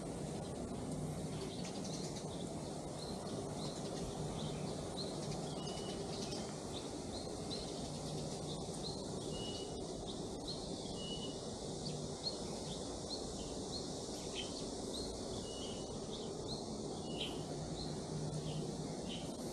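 Small birds chirping, short high chirps about once or twice a second, over a steady low background rumble of outdoor ambience.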